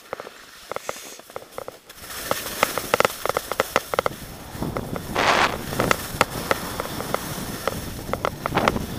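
Skis sliding and scraping over snow during a downhill run, picked up by the skier's action camera: a string of sharp clicks and crackles, with wind on the microphone rising from about two seconds in. A louder scraping hiss swells about five seconds in.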